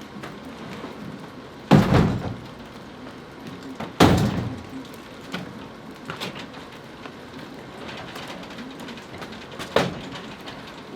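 Two loud, heavy thumps about two seconds apart, each with a short ringing tail, then a lighter knock near the end, over a steady hiss of light rain.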